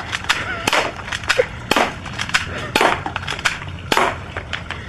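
An irregular run of sharp knocks and thumps, about a dozen in under five seconds, over a low rumbling noise.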